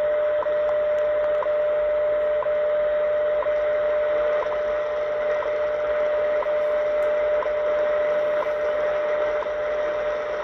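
WWV time signal station on 25 MHz received in AM on an ATS-25 DSP shortwave receiver: a steady standard-frequency tone with a short tick once every second, over shortwave static hiss.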